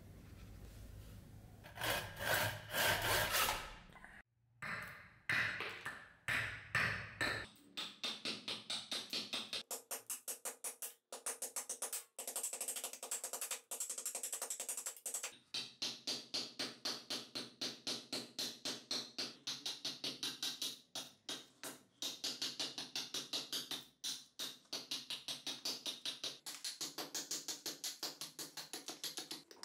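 Hatchet chopping into a hornbeam handle blank resting on a wooden chopping block. After a few loose blows, the chops settle into a quick, even rhythm of about three to four a second.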